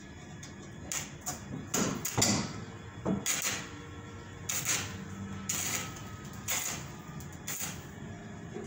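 Metalwork on a steel chair-trolley frame: about ten short, sharp scraping and knocking noises spaced a fraction of a second to a second apart.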